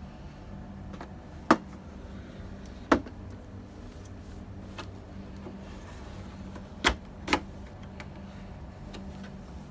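Four sharp clicks and knocks from hands working on a desktop computer's case and parts during a RAM upgrade, over a steady low hum.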